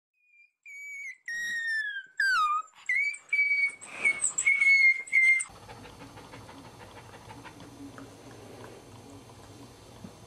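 Cairn terrier whining during whelping: a string of short, high-pitched cries, several of them gliding down in pitch. About halfway through they stop abruptly and only faint room noise remains.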